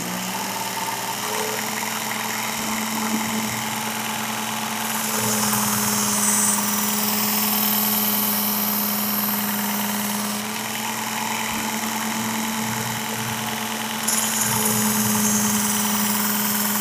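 Work Sharp belt sharpener with the Blade Grinding Attachment running at a raised speed, its motor humming steadily. Twice, from about five seconds in and again near the end, a machete's steel edge is drawn along the abrasive belt, adding a grinding hiss as a convex edge is put on it.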